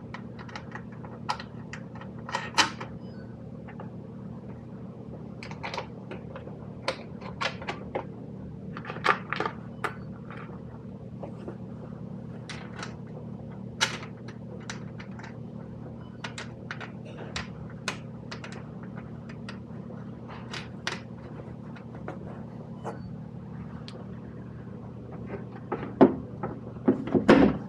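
Irregular plastic clicks, taps and knocks as the blue plastic fan guards of a Bohn walk-in cooler evaporator are handled and snapped back into place, over a steady low hum. The knocks come closer together and louder near the end.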